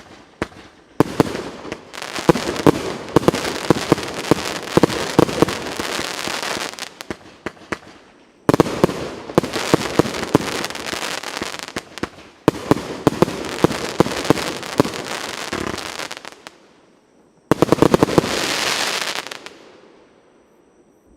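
Pyroff 'Skazka' firework cake firing in four quick runs of sharp shots and crackling, with short pauses between them. The last run is a shorter, denser crackle that fades out near the end.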